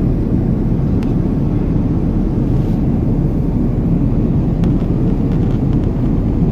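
Steady low rumble inside a passenger airliner's cabin, its engines running.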